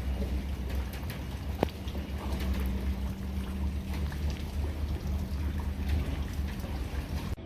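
A boat's engine running with a low rumble, over crackling, splashing water, with one sharp click about a second and a half in.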